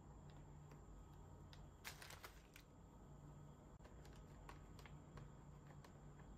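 Near silence with faint handling noise from a chocolate box and its plastic tray: scattered light clicks, with a short crinkly rustle about two seconds in.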